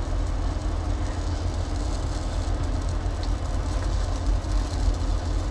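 Steady low rumble of an idling diesel truck engine, with onions frying in a pot on a portable burner and sizzling under it.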